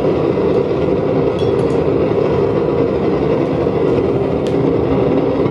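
Homemade blast furnace firing on low: a steady, even rushing roar of its burner flame and air, with a few faint clinks.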